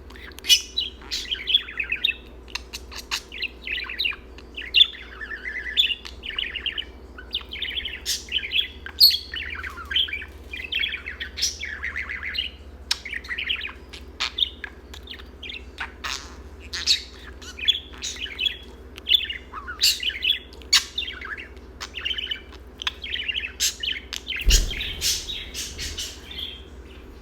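Pet budgerigar chattering and warbling nonstop: a rapid, busy run of chirps, squeaks and sharp clicks.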